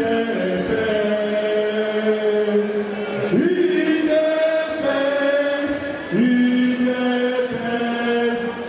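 Voices singing a slow chant in long held notes. A new phrase starts about every three seconds, each sliding up in pitch into the held note.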